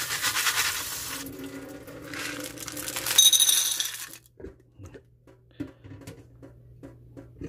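Tap water splashing over freshwater snails in a plastic colander, fading out after about a second. About three seconds in, the snails are tipped into a glass bowl with a loud clatter and a ringing of glass, followed by light clicks and taps of handling.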